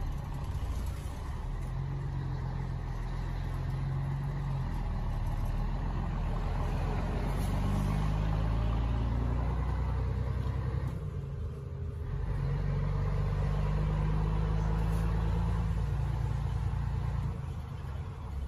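Scania truck's diesel engine heard from inside the cab, pulling through the gears. The engine note climbs, breaks off briefly about eleven seconds in as a gear is changed, then picks up again and drops once more near the end.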